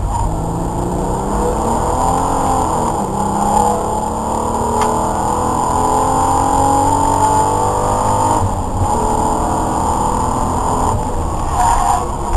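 Race car engine at full throttle, heard from inside the stripped cabin, its pitch climbing steadily as it pulls through a gear, with a short break about two-thirds of the way in, like a gear change, over road and wind noise.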